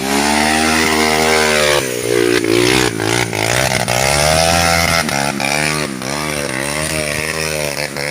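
A small engine, like a motorcycle's, running hard with its pitch swinging up and down repeatedly as it is revved. This is the strange sound caught on the phone.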